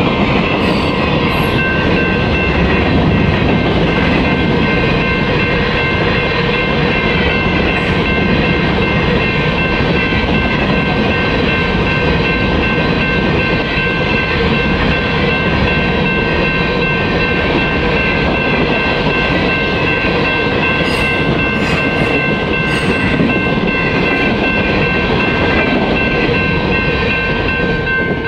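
Freight train of covered hopper cars rolling past at close range: a steady loud rumble and clatter of wheels on the rails, with steady ringing tones over it from the grade-crossing bell. The rolling noise drops away at the very end as the last car clears the crossing.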